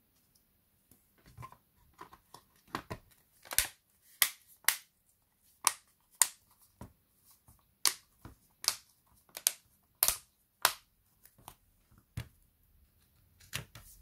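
Irregular sharp plastic clicks and snaps from the clips of a Samsung Galaxy Tab A T295 tablet's housing. A few faint ones come first, then about a dozen loud ones from about three seconds in until near the end.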